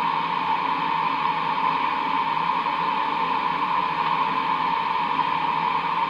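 CB radio receiver putting out a steady rushing static with no signal on the channel: atmospheric noise picked up from skip conditions on the band, strongest in a band at a middle pitch.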